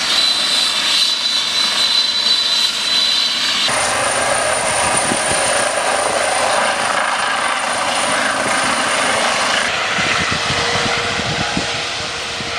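Trauma helicopter (Eurocopter EC135) running at full power as it lifts off and climbs away: turbine whine over heavy rotor noise. The sound changes abruptly about four seconds in.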